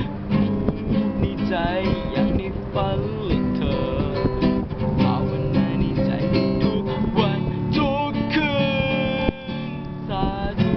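Nylon-string acoustic guitar strummed and picked in an instrumental passage, with a brief drop in the playing near the end.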